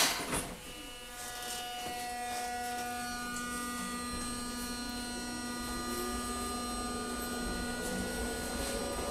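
Hiroshima Electric Railway 800-series tram heard from on board: a sharp clunk right at the start, then the armature chopper controller's steady multi-tone whine sets in about a second later as the tram starts to move, with a low motor tone rising near the end as speed builds.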